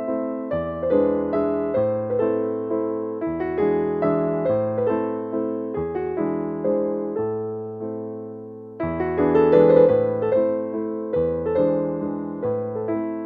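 Background music: a gentle piano-like keyboard playing chords and a slow melody, each note struck and then fading, with a short lull about eight and a half seconds in.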